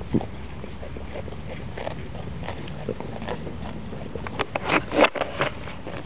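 A goat grazing up close, tearing and chewing grass in irregular short snaps, with a louder run of bites about four to five and a half seconds in.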